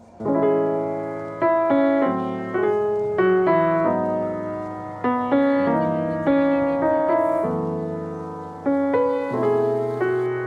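Background music: a gentle piano piece, its notes and chords struck and left to fade.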